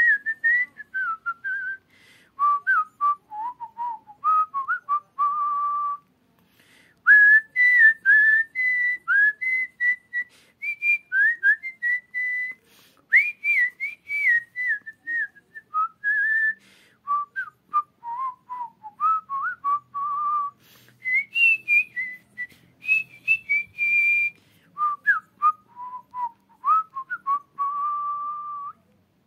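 A man whistling a melody through pursed lips: one clear pitched line that moves up and down in short phrases, with a pause about six seconds in.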